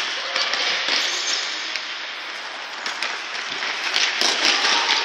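Busy din of a children's indoor futsal game: scattered knocks of ball kicks and feet on the court over a steady, echoing noise of the hall.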